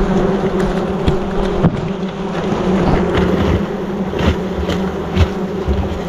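A swarm of wasps buzzing steadily around their disturbed nest, with a few brief knocks over the buzzing.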